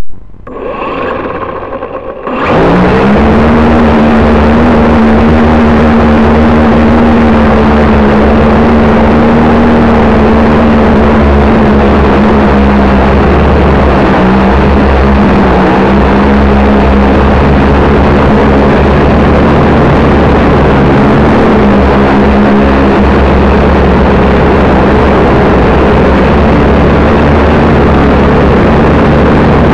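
Small quadcopter's electric motors and propellers, heard from a camera on the craft: a quiet whine spinning up, then about two seconds in a sudden jump to a loud, steady buzz with rushing propeller wash as it lifts off and hovers.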